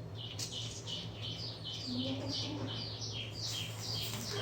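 A bird calling in a fast, even run of short descending chirps, about three a second, over a steady low hum.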